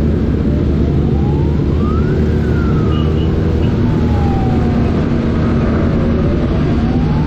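A wailing siren sweeping slowly up and down in pitch, rising once, falling over several seconds and climbing again near the end, over the steady rumble of engines and wind while riding.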